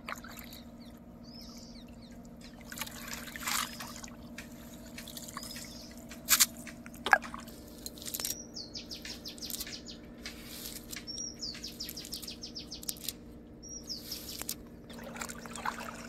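River water splashing and trickling in scattered bursts, with a bird calling in rapid, repeated high strokes from about eight seconds in. A faint steady hum runs underneath.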